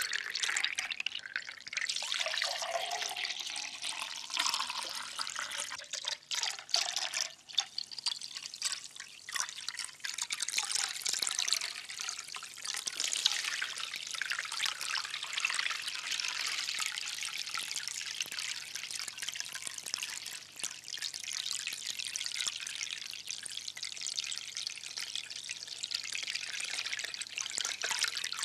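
Liquid trickling and dripping steadily, with a pour into a glass in the first few seconds.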